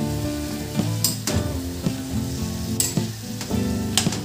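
A metal spatula stirring vegetables in a sizzling metal wok, with four sharp scrapes of the spatula against the pan.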